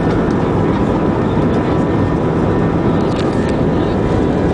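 Steady jet-engine and airflow noise of a Wizz Air Airbus A320 heard inside the cabin over the wing as the airliner rolls along the runway, with a faint steady whine above it.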